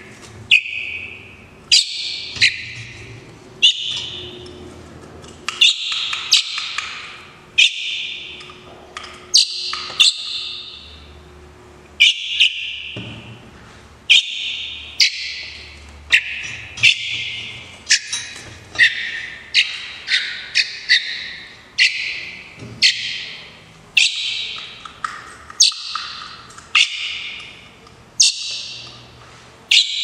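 Juvenile common blackbird fledglings give loud, sharp begging calls for food, repeated about once a second, each call a high note that trails off.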